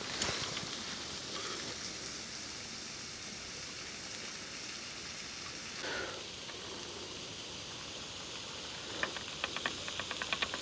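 Steady outdoor background hiss, with a faint knock just after the start, another about six seconds in, and a quick run of small clicks near the end.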